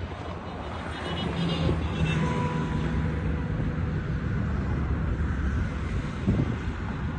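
Wind buffeting a phone's microphone, with a low, steady motor-like hum that comes in about a second in and fades out around five seconds.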